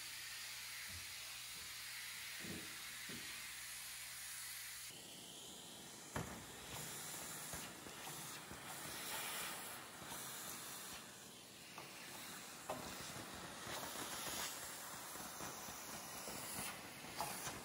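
Vacuum cleaner running with a steady hiss of suction through its hose and metal nozzle. About five seconds in it comes much closer and rougher, with scattered clicks and rattles as grit and small debris are sucked up.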